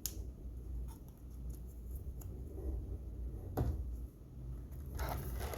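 Small plastic parts and packaging of a streaming-player box being handled: a click at the start, a sharper knock about three and a half seconds in, and a short rustle near the end.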